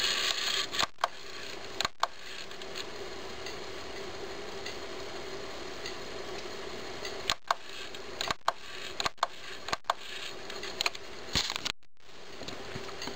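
Steady faint whir of an opened clock radio's CD drive running, broken by several sharp clicks.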